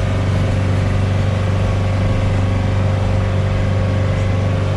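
Engine of a four-wheel-drive truck running steadily as it drives up a dirt track, heard from inside the cab. It makes a deep drone with a steady whine above it.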